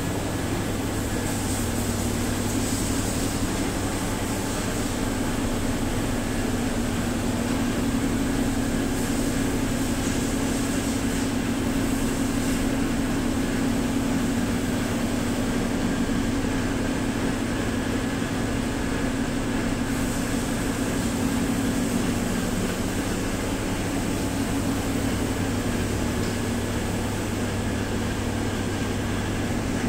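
Rotary rack ovens running mid-bake, their hot-air circulation fans giving a steady drone with a low hum.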